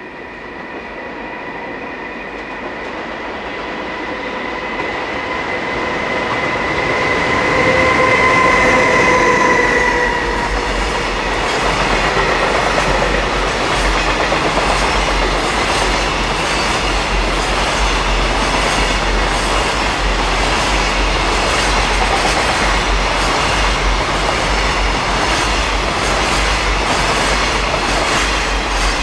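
An EH500 electric freight locomotive approaches with a steady whine that grows louder and drops a little in pitch as it passes about ten seconds in. A long train of container wagons then rolls past, with loud rumbling and a rapid clickety-clack of wheels over the rail joints, until the last wagon goes by near the end.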